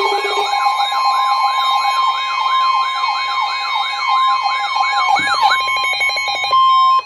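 Emergency Alert System alert tones, heralding a flash flood warning: a rapidly repeating wailing sweep, about three a second, layered over steady alarm tones. The sweeps break off about five and a half seconds in, and a single steady tone holds alone briefly before cutting off.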